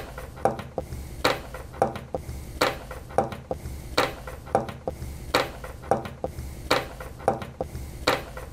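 Sharp clicks, two to three a second in a loose uneven rhythm, from a small black handheld object being fiddled with in the hands.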